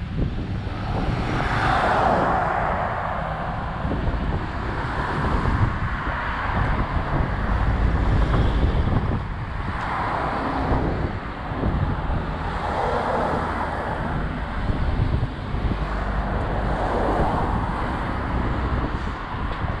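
Wind buffeting the microphone over street traffic, with several cars passing one after another.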